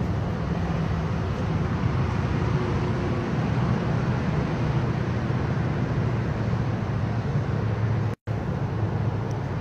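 Steady outdoor street ambience: a low traffic rumble with a faint hum under it. It cuts out briefly about eight seconds in.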